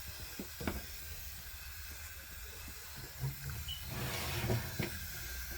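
Faint steady hiss of a chicken roasting in the oven, with a few light clicks and knocks.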